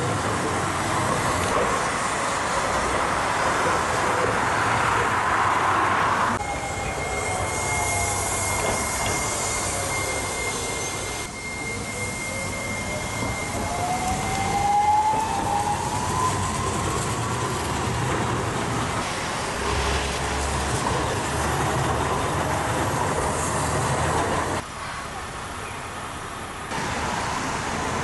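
Hiroden electric tram running on street track amid city traffic. Partway through, the tram's motor whine falls and then rises in pitch while a steady high tone sounds with it.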